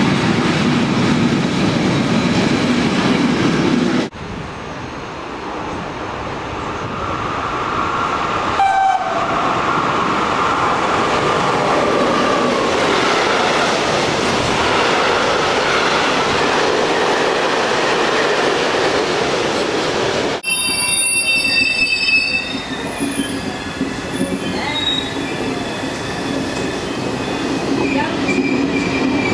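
Freight trains rolling past close by, a steady rush of wheel and wagon noise. Near the end a train of passenger coaches passes, with high-pitched metallic squeals from its wheels at first.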